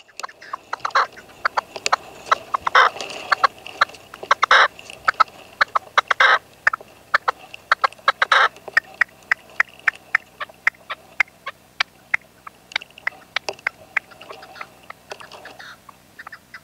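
Red-legged partridge calling: a long run of short, sharp clucking notes, several a second, with longer, louder calls about every two seconds in the first half.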